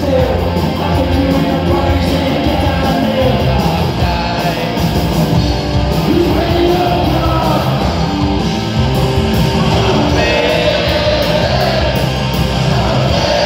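Live punk rock band playing loud: distorted electric guitar, bass guitar and drums, with a singer shouting the vocal line over them.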